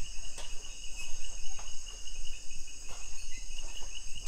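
Rainforest insects, crickets among them, singing in a steady high-pitched chorus, with a few faint knocks.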